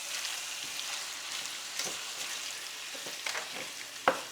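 Spoon stirring a wet mix of pasta, ground beef and diced tomatoes in a skillet, with a steady faint hiss and a few sharp knocks of the spoon against the pan.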